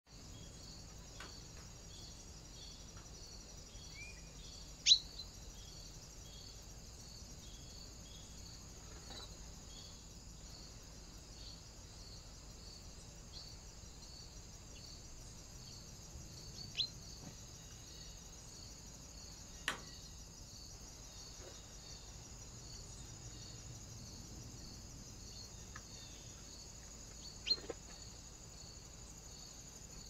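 Steady, faint high chirring of crickets pulsing at an even pace, with a few short, sharp bird calls that drop quickly in pitch, the loudest about five seconds in.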